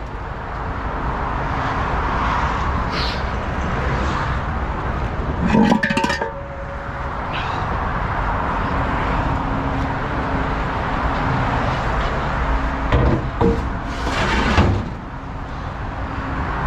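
A heavy vehicle's engine running steadily, with metal clanks and ringing as stands are handled: one bout about six seconds in, and more near the end.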